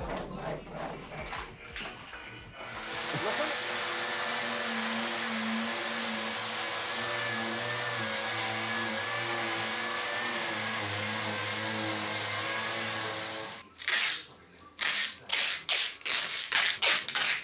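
Random orbital sander with a dust-extraction hose running steadily, sanding a cured resin surface; it starts about three seconds in and stops about three seconds before the end. Then a string of loud, short, uneven scraping sounds.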